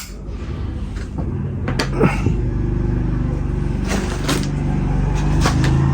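A steady low engine hum that grows louder, with several sharp clicks and knocks of metal lighters being handled.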